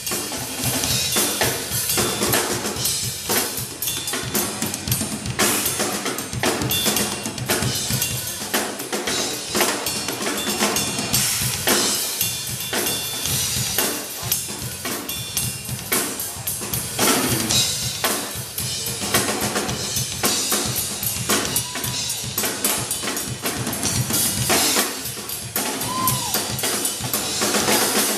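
Two acoustic drum kits played in a drum battle: fast, dense bass drum, snare and cymbal strokes.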